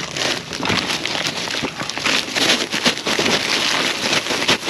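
Plastic bags and a mesh onion sack rustling and crinkling as gloved hands dig through them, a dense, rapid crackling rustle.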